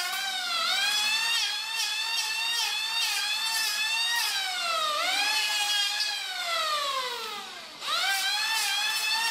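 Handheld electric planer whining as it shaves a curved wooden blank, its pitch dipping briefly as the blades bite. About five seconds in, the motor winds down in pitch for nearly three seconds. Near the end it is switched back on and jumps straight back to full speed.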